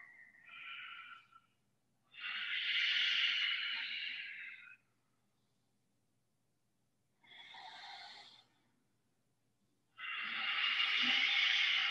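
Ujjayi breathing: slow breaths drawn and let out through a narrowed throat, heard as three separate hisses of breath. The middle breath is shorter and fainter than the other two.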